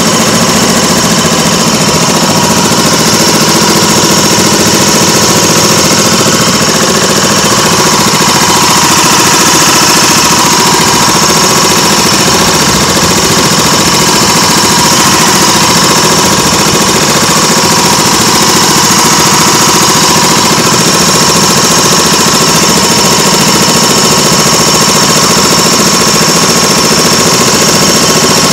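Small gasoline engine of a motorized bumper boat running steadily and loudly close by.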